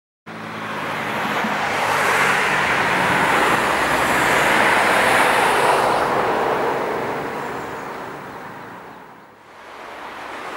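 Road traffic noise that swells to a peak a few seconds in and fades away, like a vehicle passing, with the traffic noise picking up again near the end.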